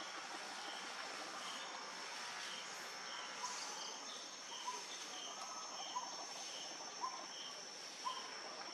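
Forest ambience: steady high-pitched insect buzzing with a faint regular pulsing, and short chirps repeating about once a second from a few seconds in.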